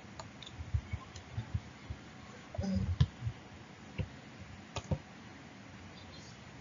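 Faint, irregular clicks and taps, about a dozen spread unevenly, over a low steady hiss of room tone.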